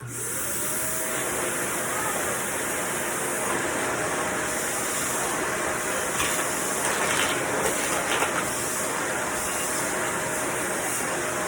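Vacuum cleaner switched on: its motor whines up in pitch to speed within about a second, then runs steadily with a loud rushing airflow.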